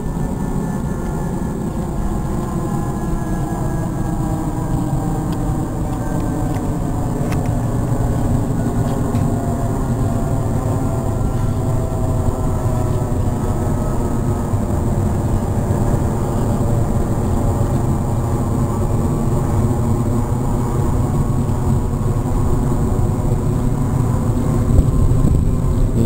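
Steady engine drone of a passing aircraft, several tones slowly gliding down in pitch over a low rumble and growing slightly louder, with a single brief knock near the end.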